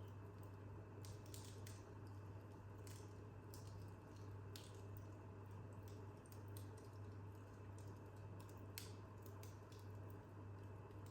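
Wood fire crackling faintly in a fireplace: sparse, irregular snaps and pops over a steady low hum.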